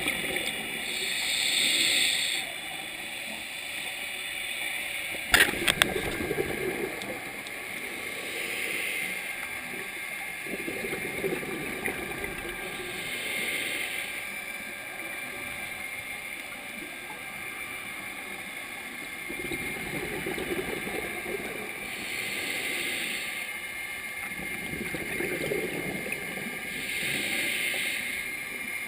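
Scuba regulator breathing heard underwater: a hissing inhale followed by a gurgling rush of exhaled bubbles, repeating about every five to six seconds. A few sharp clicks come about five seconds in.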